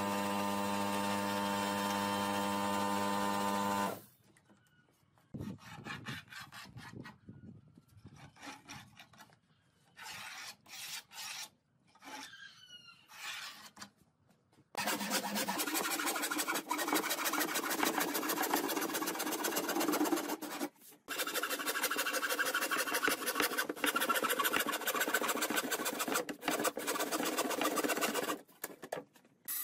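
A hand frame saw cutting through a plywood sheet: continuous rasping from about fifteen seconds on, with two short pauses. Before it there is a steady hum for about four seconds, then scattered light knocks and scrapes of wood being handled.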